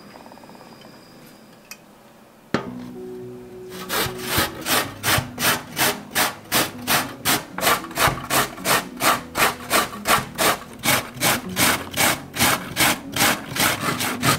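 Carrot being grated on a stainless steel box grater over a wooden cutting board: a steady run of rasping strokes, about two and a half a second. A sharp knock comes a couple of seconds in, before the grating starts.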